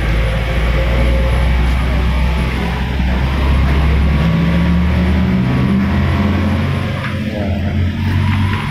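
A motor vehicle engine running with a loud, low rumble; its pitch shifts upward a little in the second half.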